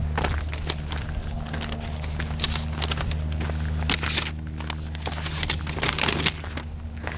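Footsteps crunching along a forest trail, with scattered crackles over a steady low hum.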